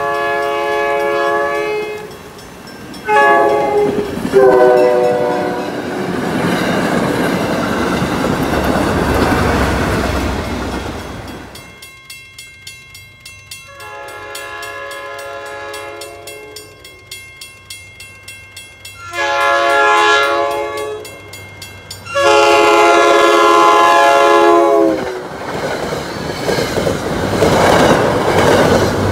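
MBTA commuter train locomotive horn sounding at grade crossings: two blasts near the start, then, after a stretch of rumble, three more long blasts about midway. The crossing bell rings steadily between blasts, and near the end the train passes with its wheels clacking over the rail joints.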